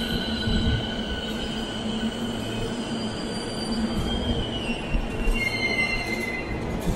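Toei Shinjuku Line subway train braking into the platform: a steady rumble with several high whining tones that slowly fall in pitch as it slows, dying away as the train stops near the end.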